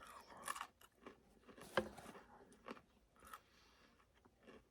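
A person chewing fried chicken, with faint, irregular crunching and smacking sounds.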